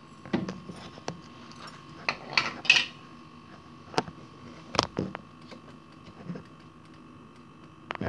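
Flood-protection float microswitch in a DEFY dishwasher's base clicking, with plastic knocks, as the float is pushed up and let drop by hand: a string of sharp, irregular clicks. This is the switch that water under the float holds on, keeping the drain pump running.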